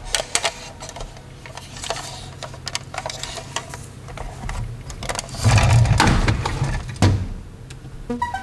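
A plastic toy tanker truck being handled on a tabletop: scattered small plastic clicks and knocks, then a louder rumbling whir lasting about a second, starting about five and a half seconds in, as the truck rolls on its plastic wheels.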